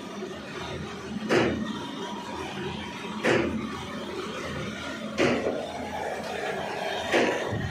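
Corrugated board sheet cutting machine running, its knife cutting the board with a sharp slam about every two seconds, four cuts in all over a steady machine noise. Each cut ends one sheet at the length set on the encoder.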